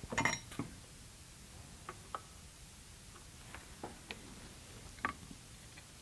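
Light metallic clicks and clinks from soldering work on a circuit board: a quick cluster at the start, then single ticks every half-second or so as the soldering iron and solder wire touch the pins of a coin-cell battery holder.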